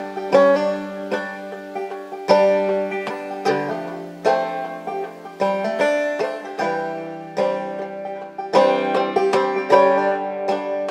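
Background music: a plucked string melody whose notes start sharply and ring away.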